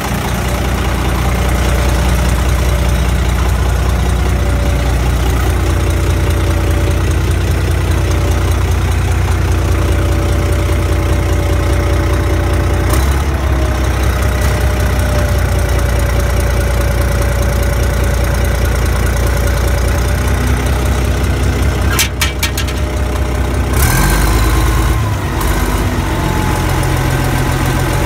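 Caterpillar D6C crawler dozer's six-cylinder diesel engine running steadily and loud, its note shifting about halfway through and again near the end, with a few sharp clicks shortly before that second shift.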